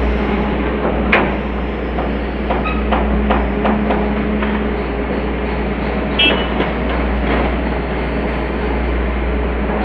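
Hitachi excavator's diesel engine running steadily, with a series of metal clanks and knocks: one about a second in, several in quick succession a little later, and a ringing clank about six seconds in.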